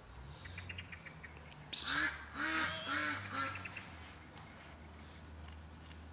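A short loud noise, then an animal gives four or five short calls in quick succession, each rising and falling in pitch. Three faint high chirps follow a little later.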